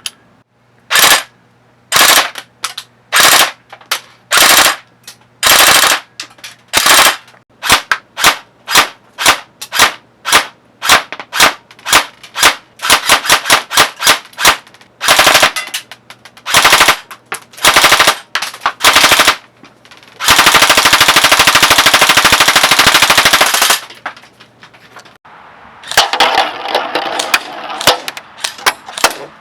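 JG Works FAL blowback airsoft electric gun (AEG) firing single shots, about one a second at first and then coming faster, with a sustained full-auto burst of about three and a half seconds past the middle and more uneven clatter near the end.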